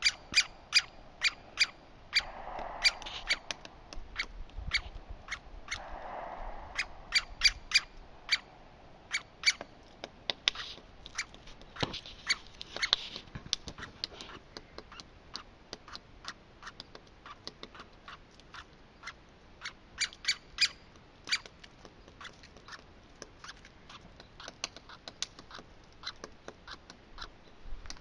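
Woodpecker sounds: a long, irregular series of short, sharp ticks, sometimes several a second, with brief pauses between runs.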